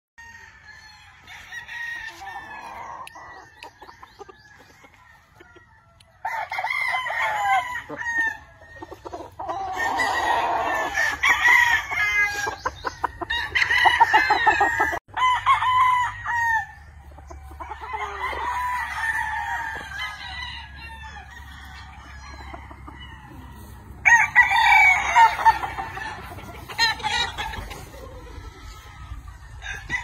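Gamefowl roosters crowing over and over, with clucking between the crows; the crowing comes in loud stretches, heaviest in the first half and again near the end.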